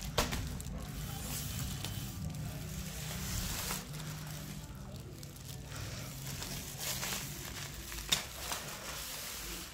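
Clear plastic wrapping around a badminton racket crinkling and rustling as hands handle it, with sharp crackles just after the start and about eight seconds in, over a low steady hum.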